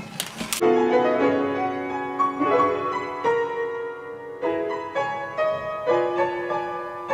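Background piano music, slow notes left to ring, starting about half a second in after a couple of quick clinks of dishware.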